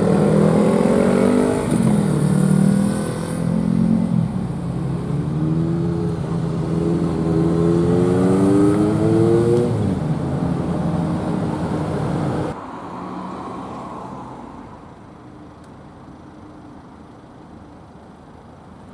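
Motor vehicle engine accelerating hard, its pitch climbing and dropping back several times as it shifts up through the gears. About two-thirds of the way through it cuts off suddenly, leaving quieter steady road noise.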